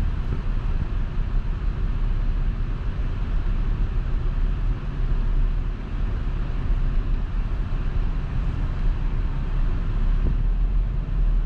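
Steady low road and engine rumble heard from inside the cabin of a Volkswagen Passat being driven.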